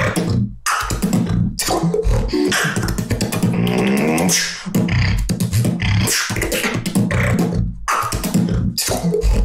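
Solo beatboxing: a fast vocal beat of deep kick-drum thumps and sharp clicks and snares, with pitched vocal sounds that slide up and down woven through it.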